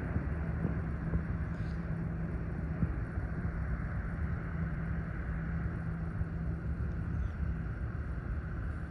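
Large car ferry under way, its engines a steady low hum with one constant tone, mixed with wind rumbling on the microphone.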